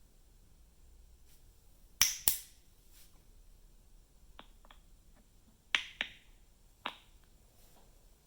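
Short, sharp snapping clicks: a loud pair about two seconds in, two faint ticks around the middle, another pair near six seconds and a single one near seven.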